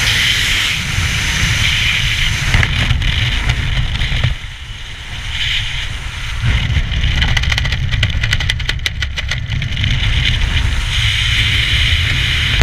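Air rushing over a skydiver's helmet-camera microphone in freefall, a heavy steady wind rumble. It dips about four seconds in, then rapid fluttering sets in as the parachute opens.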